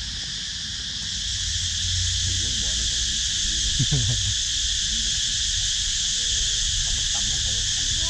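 A chorus of cicadas singing in the trees: a steady, high-pitched drone that does not let up, over a low rumble.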